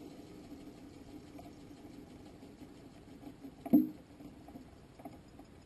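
Faint onboard audio from a rocket in flight: a low steady hum with scattered small ticks and rattles, and one sharp knock a little past the middle.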